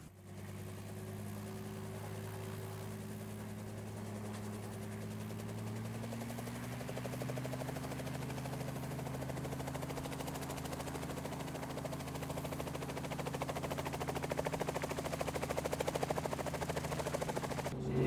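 Small helicopter running on the ground, its rotor spooling up: the engine pitch steps up a little and the rapid, even chop of the rotor blades grows steadily louder.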